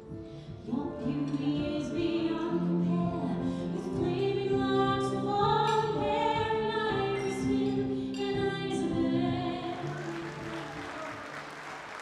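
A soprano sings with vibrato over piano accompaniment, holding long notes. About ten seconds in, as the song ends, the audience starts to applaud.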